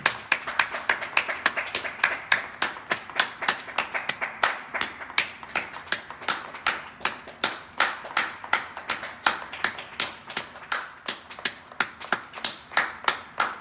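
People clapping on the balconies of the surrounding apartment blocks: a steady run of sharp hand claps, about four a second, over the softer clapping of many more people further off.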